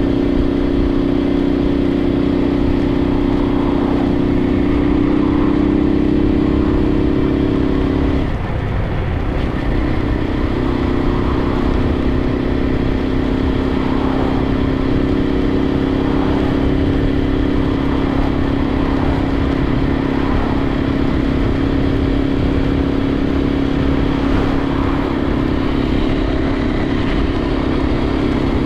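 Suzuki TU250x's single-cylinder engine running steadily while riding. About eight seconds in, the engine note drops sharply and then settles at a lower steady pitch.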